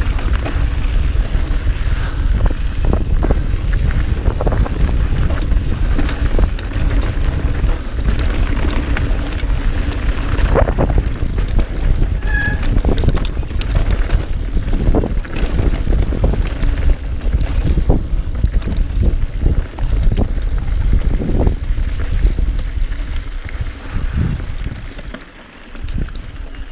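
Mountain bike riding over rough trail: wind buffeting the camera microphone, with frequent clicks, rattles and knocks from the bike. The noise eases off about two seconds before the end.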